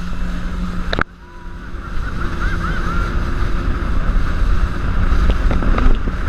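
Jet ski engine running under throttle at speed, with water splashing off the hull and wind buffeting the microphone. About a second in there is a sharp click and the sound drops off suddenly, then builds back up to a loud, steady run.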